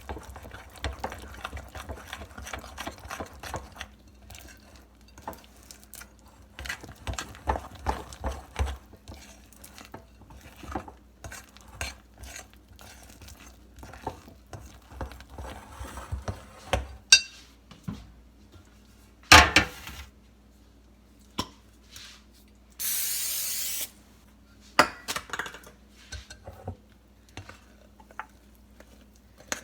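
Spoon stirring and scraping hot peanut brittle candy in a bowl, with irregular clinks and knocks as baking soda is mixed in; a few louder knocks come about two-thirds of the way through, and a steady hiss lasting about a second follows.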